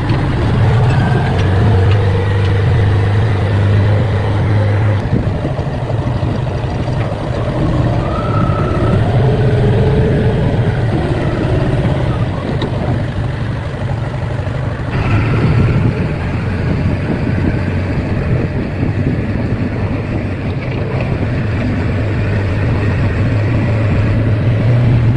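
Backhoe loader's diesel engine running steadily with a low drone as the machine travels along a road. The sound changes abruptly about five and fifteen seconds in.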